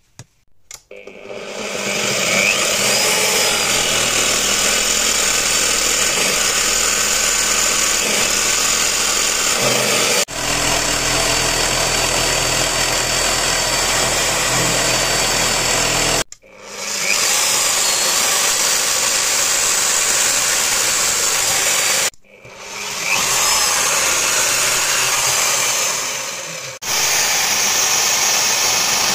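Electric drill mounted in a drill stand, running steadily as it cuts a slot into a micarta handle slab and then drills holes. It stops and winds back up a couple of times.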